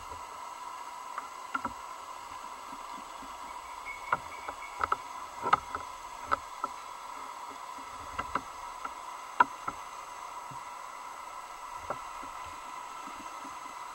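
Underwater recording through a camera housing: a steady electronic hum with scattered sharp clicks and knocks at irregular intervals.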